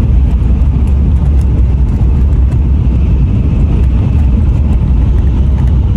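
Shinkansen bullet train running at high speed, heard from inside the passenger car: a loud, steady low rumble, "hollering".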